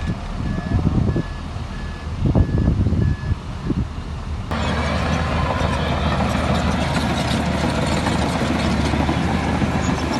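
A heavy machine's reversing alarm beeping at one steady pitch, about three beeps every two seconds, over a diesel engine running and surging. The beeps stop about three and a half seconds in, and about a second later the sound cuts abruptly to a louder, steady diesel engine with metallic clatter.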